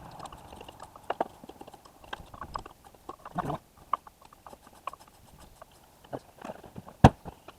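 Irregular clicks, clinks and knocks of hand tools and metal parts being handled, with one sharp knock near the end.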